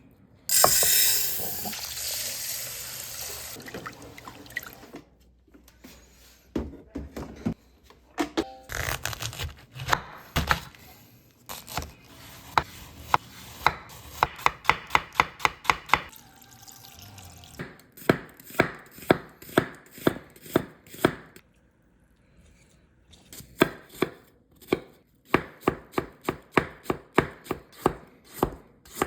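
Knife chopping food on a cutting board in quick runs of even strokes, about four a second, with short pauses between runs. It opens with a loud hiss that fades over a few seconds.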